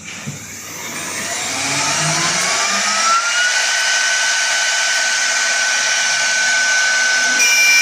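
Accumech 1530 CNC router's spindle spinning up when the program is started: a whine rising over about three seconds, then holding steady over a loud rushing hiss of air. A second, higher tone joins near the end.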